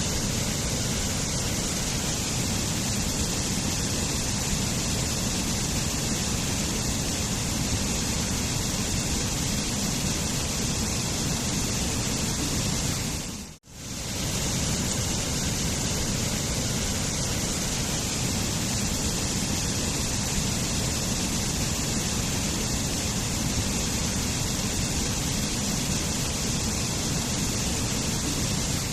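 Waterfall, water falling in a steady, dense hiss of sound; it drops out almost to silence for a split second about halfway through, then comes straight back.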